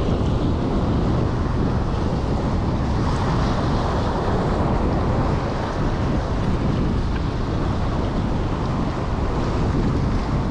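Steady wind noise on the microphone over waves splashing against the jetty rocks.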